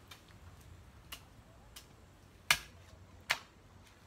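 A hoe blade chopping into garden soil: a few faint sharp strikes, then two loud sharp strikes in the second half, under a second apart.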